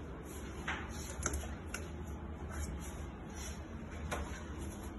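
About five light, irregular clicks and knocks as a steel 1 kg standard weight is handled on the stainless pan of a digital weighing scale, over a steady low hum.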